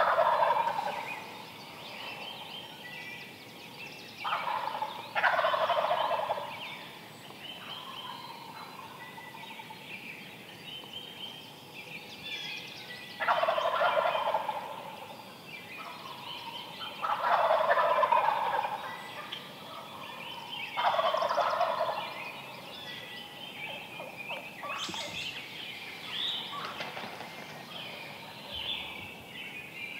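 Wild turkey gobblers gobbling, about six loud rattling gobbles a few seconds apart, two of them close together, with small birds chirping faintly in between.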